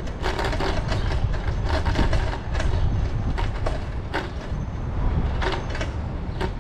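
Bicycle rolling along a paved bike lane: a steady low rumble of tyres and wind on the microphone, with frequent irregular clicks and rattles as the bike goes over the road surface.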